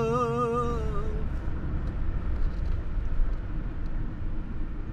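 A man singing the last long, wavering "aman" of a Turkish folk song unaccompanied, trailing off about a second in; then the steady low rumble of a car driving in city traffic.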